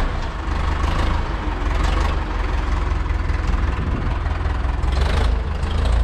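Tractor's diesel engine idling steadily just after a cold start.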